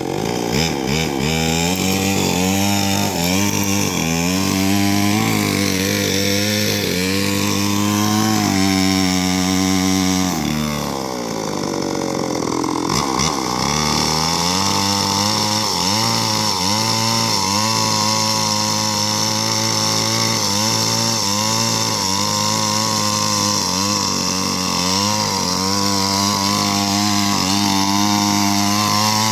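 Chainsaw running at high revs, cutting into the trunk of a rubber tree being felled, its pitch dipping and recovering as the chain bogs under load. About ten seconds in the revs fall briefly, then the saw revs back up and keeps cutting.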